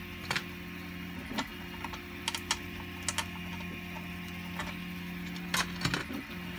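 Scattered light clicks and knocks of 3D-printed plastic parts of a robot head being handled and fitted together by hand, with a couple of taps close together near the end.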